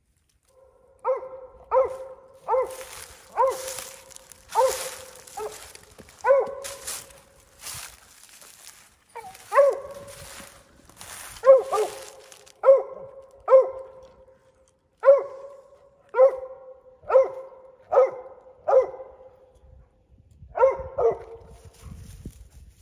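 Mountain Cur squirrel dog tree-barking: a steady run of sharp, even barks about one a second, the bay of a dog that has a squirrel treed. In the first half, dry leaves crunch and rustle underfoot.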